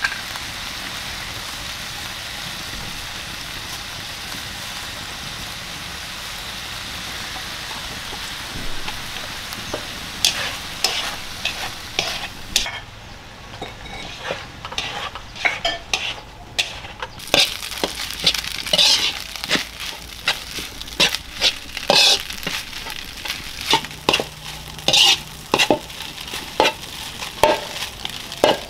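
Minced fish sizzling as it fries in a wok. From about a third of the way in, a metal spatula knocks and scrapes against the wok in quick, irregular strokes as the fish is stirred.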